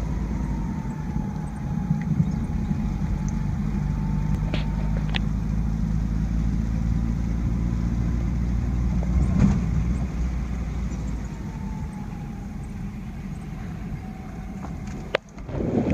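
Car cabin noise while driving: a steady low engine and road rumble, with a few sharp ticks about five and nine seconds in. Near the end there is a loud click, a brief drop, and then a louder rushing noise.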